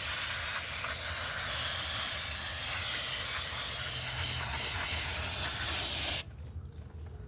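A spray hissing steadily as it washes brake dust off a rear drum brake assembly, then cutting off suddenly about six seconds in.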